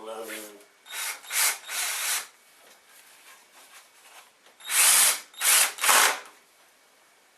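Power drill driving wood screws into wood in short bursts: one group of about three a second in, then another group of three near five seconds.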